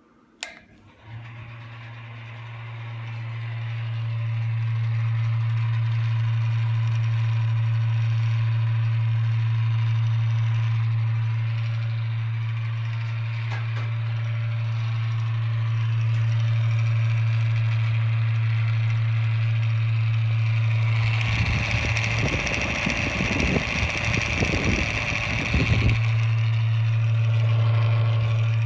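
JEE window-mounted bathroom exhaust fan switched on with a click, its motor humming and taking several seconds to come up to speed on a cold start, which the owner puts down to bearings that probably just need oiling. About twenty seconds in, a louder rushing, rumbling noise covers the hum for about five seconds.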